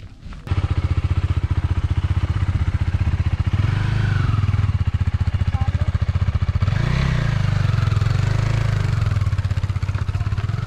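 Motorbike engine running while the bike is ridden, a rapid steady firing pulse that starts abruptly about half a second in and shifts in pitch a couple of times as the throttle changes.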